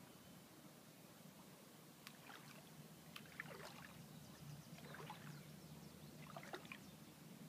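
Faint lake water lapping and splashing at the shore in a few short clusters, over a low steady hum.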